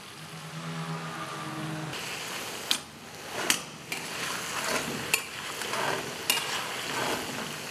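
Chicken pieces sizzling in hot oil in a metal karahi as whole tomatoes go in, with several sharp clinks of a metal spoon against the pan.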